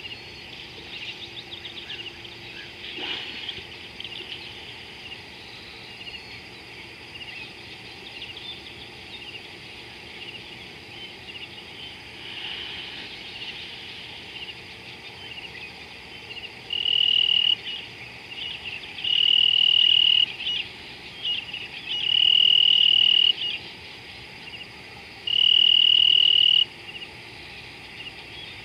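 Insect trilling close by: loud, steady, high-pitched buzzes of about a second each, starting about halfway through and repeating every two to three seconds. Under them runs a background chorus of chirping insects and birds.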